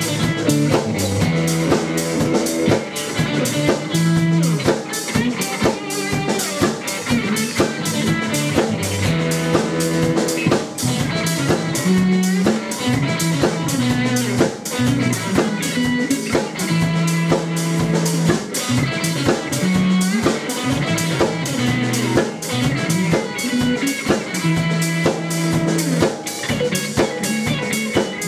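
Live rock band playing an instrumental passage: electric guitar, electric bass and drum kit, with a steady drum beat and a moving bass line.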